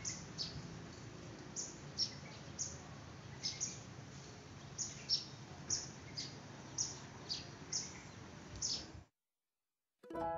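A small bird chirping over and over: short, high calls that fall in pitch, about one or two a second, over steady outdoor background noise. The sound cuts out near the end, and piano music starts just after.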